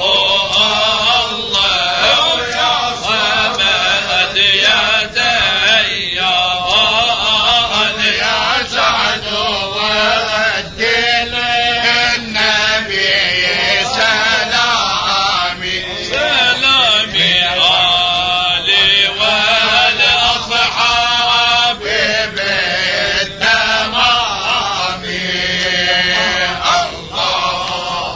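Men chanting a tahlila, an Islamic devotional chant, in a continuous melodic line that bends up and down without pause.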